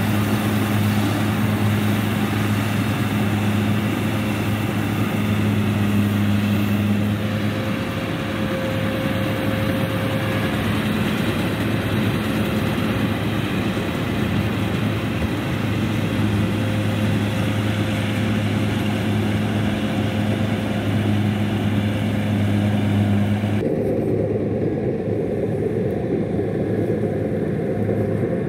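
Kubota DC60 combine harvester running steadily while cutting rice, a constant engine hum with machinery noise over it. About 23 seconds in the sound changes abruptly, becoming duller as the higher part drops away.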